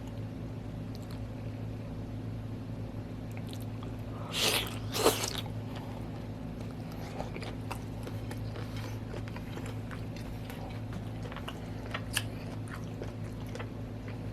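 Close-up mouth sounds of a person chewing octopus: scattered small wet clicks, with two louder noisy bursts about four and a half and five seconds in. A steady low hum runs underneath.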